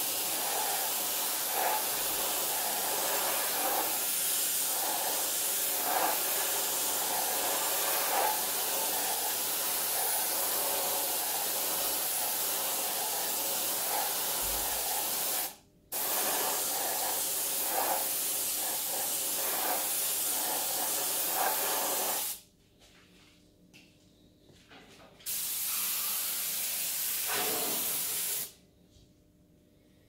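Gravity-feed paint spray gun hissing steadily as it sprays, in three bursts: a long one of about fifteen seconds, a brief break, a shorter one of about six seconds, then after a pause a short final burst.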